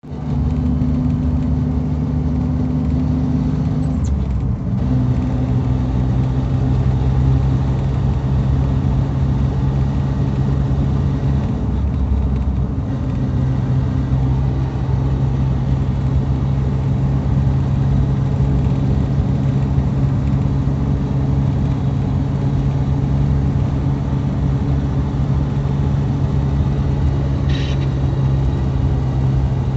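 Suzuki Jimny driving in fifth gear with a steady low drone, its pitch stepping slightly down about four seconds in and back up about eleven seconds in. This is the abnormal noise in fifth gear that the owner set out to record.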